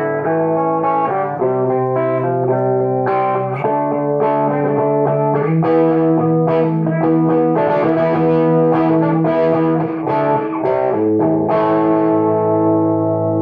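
Electric guitar (a Les Paul–style copy) played through a Hammond AO-43 organ amplifier converted into a guitar amp, with its tone control turned all the way down. It plays a run of sustained chords and notes that change every half-second to a second.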